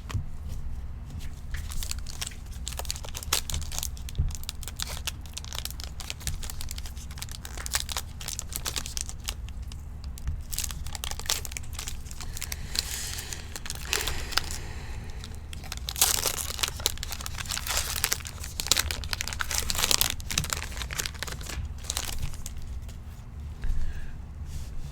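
Trading-card pack wrappers being torn open and crinkled by hand: a continuous crackling rustle with many small ticks and a few louder bursts of crinkling, over a low steady hum.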